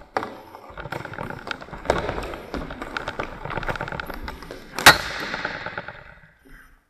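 Scuffing and sliding of a floorball goalie shifting across the goal crease on the hall floor, with a few light knocks, then about five seconds in one loud sharp crack of the hollow plastic floorball being struck hard, ringing out in the hall's echo.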